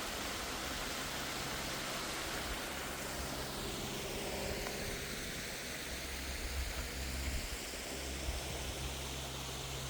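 Steady rushing hiss of a waterfall, falling water heard close by as an even, unbroken noise.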